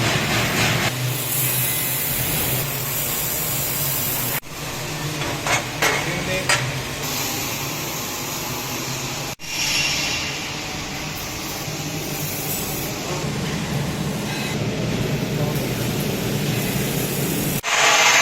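Steady sizzling hiss of a laser welding machine at work, changing abruptly about four and nine seconds in, with a few sharp crackles around six seconds.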